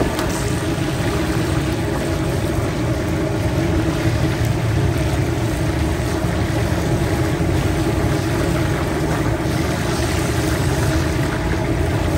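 Masala-coated fish deep-frying in a large wok of hot oil, sizzling and bubbling steadily over a constant low rumble.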